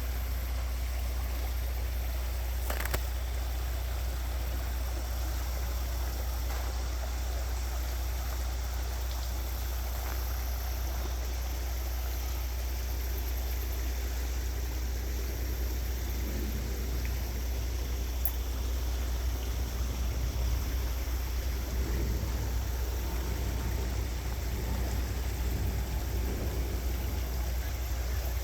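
Credit River flowing, under a steady low rumble.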